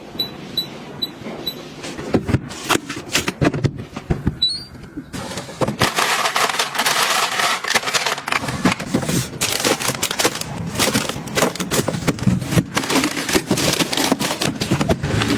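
Kitchen things being handled at close range: a quick run of clicks, knocks and clatter. It starts with a few short high beeps and grows denser with a hiss underneath from about five seconds in.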